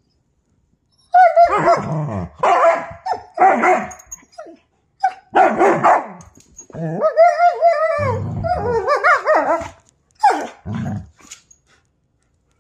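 German Shepherd–Husky and Malamute–Husky mix dogs "talking" in a string of drawn-out, pitch-bending howl-like calls and yips, a vocal argument between the dogs. It starts about a second in, with low growling twice in the second half.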